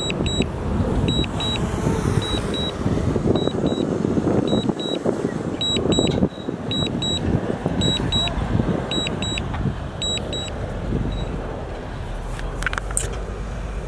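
Diesel engines of a bulldozer and dump trucks running under load, with a high-pitched reversing alarm beeping in short double beeps that stop about eleven seconds in.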